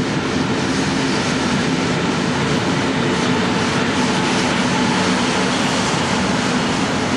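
Regional train of coaches pushed by an electric locomotive rolling past along the platform, a steady rolling rumble of wheels on rail with a faint low hum under it.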